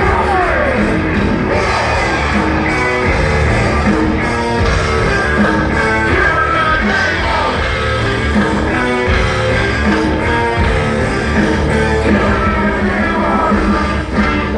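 Live rock band with rapped and shouted vocals playing loud through a festival PA, heard from within the crowd.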